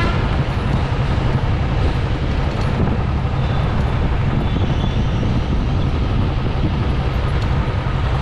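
Steady road noise from a moving vehicle in traffic, with a low engine drone and wind rumble on the microphone.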